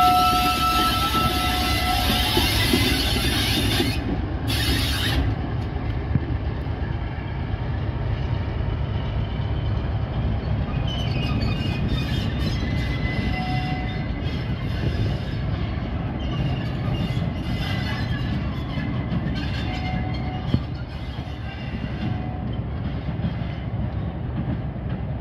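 Class 47 diesel locomotive's Sulzer twin-bank V12 engine running as the locomotive passes close by and draws away, growing slowly quieter. A steady high squeal, likely the wheels on the curve, sounds over it and stops about two seconds in.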